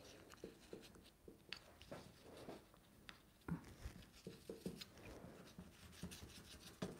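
Near silence with faint handling sounds: fingers pressing and rubbing pastry strips against the rim of a metal tart pan, with a few soft knocks around the middle as the pan is moved on the worktop.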